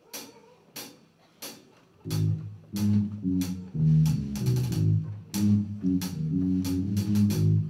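A live rock band of electric guitars, electric bass and drum kit starts a song. Three evenly spaced clicks count it in, and the full band comes in together about two seconds in, bass and guitars playing over a steady drum beat.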